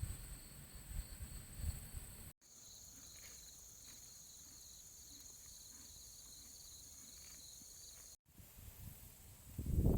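Steady, high-pitched chorus of insects singing outdoors, with low thumps and rumble over it in the first couple of seconds and again near the end. The sound drops out abruptly twice, at edits.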